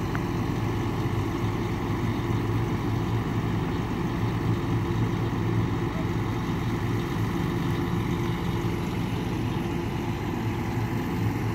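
Flatbed crane truck's engine idling steadily, a low even hum with no change in pitch.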